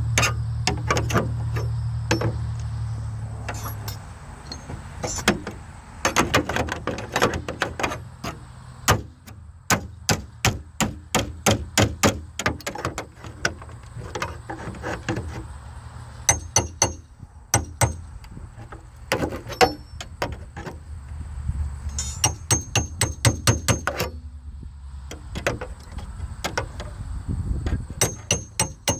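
Long series of sharp knocks and taps, often several a second in quick runs with short pauses between. A low hum fades away over the first few seconds.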